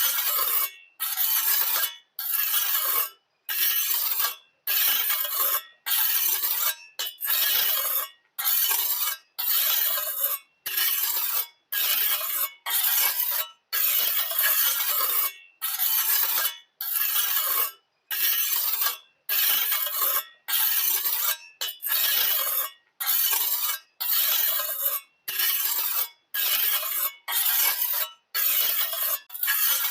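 Rough scraping or rasping in short strokes, about one a second, each cut off sharply before the next.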